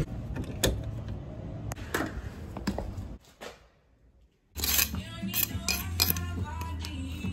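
Scattered light metallic clinks and knocks, broken by about a second of silence midway. After the break they come from a metal hand tool knocking against broken concrete and dirt around a drain pipe in a dug-out floor.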